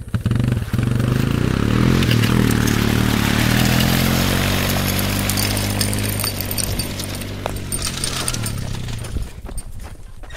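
Quad ATV engine revving up sharply and running hard as it tows a rider on a homemade board over dirt by a rope, with a gritty hiss of dirt under the run. The engine fades as it pulls away and drops off near the end.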